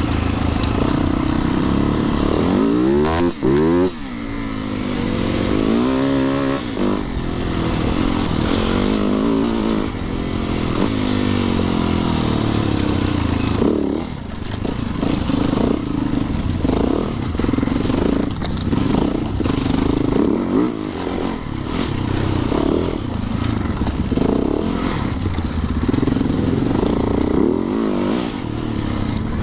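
Yamaha YZ450FX single-cylinder four-stroke dirt bike engine running while being ridden, the revs rising and falling, with a quick run of rising revs about three seconds in.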